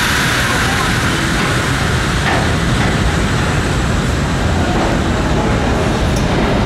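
New York City subway train running on the rails: a loud, steady rumble and rush, with a high hiss that is strongest at the start.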